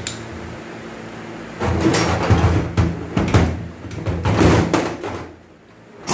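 A burst of knocking and clattering, about three and a half seconds long, starting a couple of seconds in, over a steady low hum.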